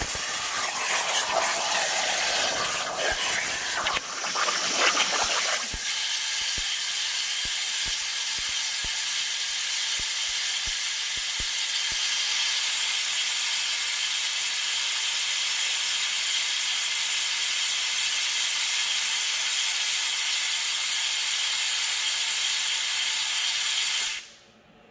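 Plasma cutting torch on a CNC plasma table cutting 1/8-inch aluminum plate: a loud, steady hiss, rougher for the first five seconds or so, that cuts off suddenly near the end when the arc stops.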